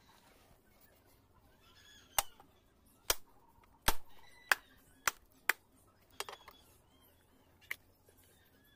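A husked coconut knocked repeatedly against the hard edge of a slab: about eight sharp knocks, irregularly spaced half a second to a second apart, as the shell cracks and splits into two halves.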